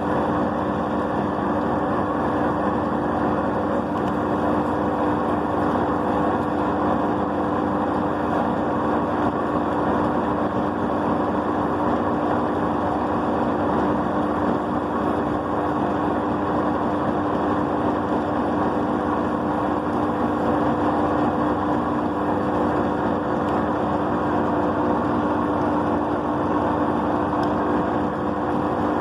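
Ultra Grind+ Gold table-top wet grinder running steadily: a constant motor hum over the even whirr of the turning grinder.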